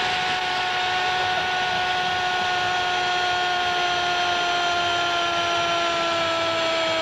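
Brazilian TV football commentator's drawn-out goal shout, one long held note that sags slightly in pitch, over stadium crowd noise.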